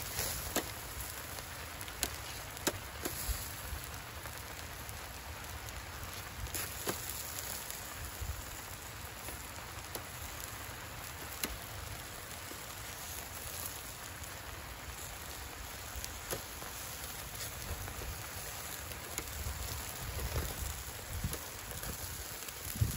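Lamb chops sizzling over hot charcoal on a small camping grill: a steady hiss with scattered sharp crackles.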